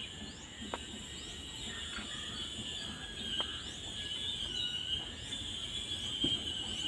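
Steady high insect chirring with short rising chirps repeating less than a second apart, and three faint clicks.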